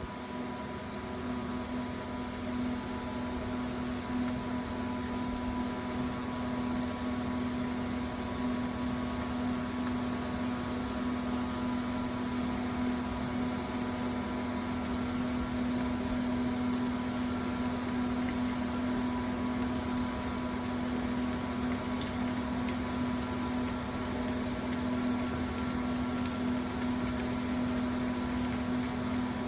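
Steady hum with a constant low tone and a soft hiss, unchanging throughout, like a fan or other small running machine.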